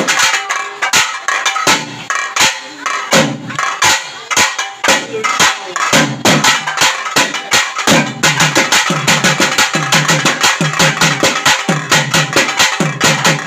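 Thavil barrel drum played solo in fast, dense, sharp strokes. From about eight seconds in, deep bass strokes join in a steady, driving pattern.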